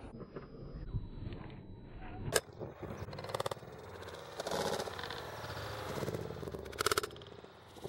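A kick scooter's wheels and deck hitting the concrete coping and surface of a skate bowl: a sharp knock about two and a half seconds in, rattling and scraping bursts after it, and another loud knock near the end.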